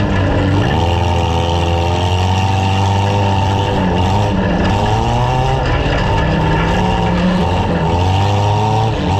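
Several compact demolition derby car engines revving up and down at once, loud and continuous.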